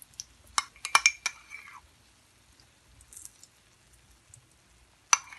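A metal spoon clinking against a small bowl while ladling melted ghee: a quick run of clinks about a second in, the last one ringing briefly, then a single clink near the end.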